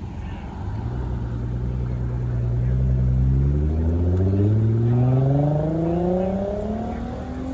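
Nissan GT-R's twin-turbo V6 accelerating away, its engine note rising steadily in pitch over several seconds and growing fainter near the end as it pulls off down the road.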